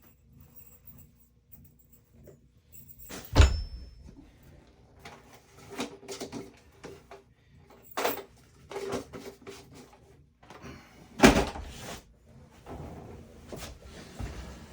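Scattered knocks and clatter of things being handled, with two louder thumps, about three and a half seconds in and about eleven seconds in.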